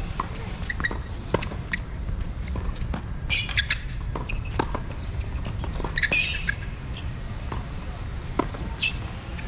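Tennis ball bouncing and being struck by racquets on a hard court, with sharp shoe squeaks on the court surface about three and a half seconds in and again about six seconds in, over a steady low rumble.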